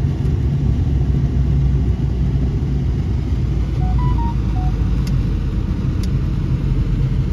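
Steady low rumble of a vehicle's engine and road noise, heard from inside the cabin while driving. A few short faint beeps at different pitches about four seconds in.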